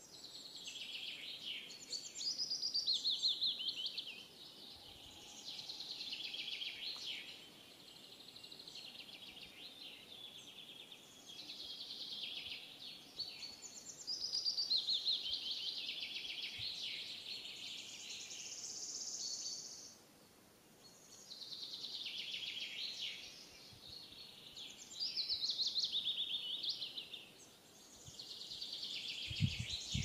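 Small songbirds singing: repeated phrases of high chirps and rapid trills, each lasting a few seconds with short pauses between.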